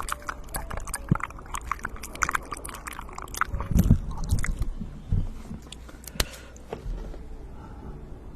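ASMR mouth sounds close to the microphone: rapid wet clicks and smacks, dense for the first half, then sparser.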